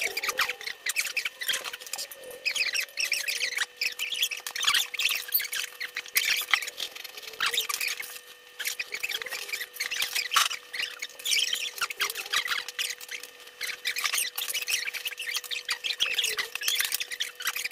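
Eating sounds at a table: a dense, irregular run of small clicks and clinks from chopsticks on bowls, with slurping and chewing of ramen noodles and kimbap. A faint steady hum lies underneath.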